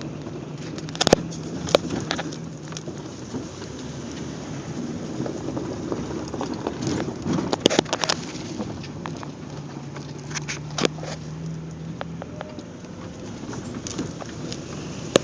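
Off-road vehicle engine running while driving over rough ground, with sharp knocks and rattles from the vehicle jolting, loudest about a second in, around eight seconds and near eleven seconds.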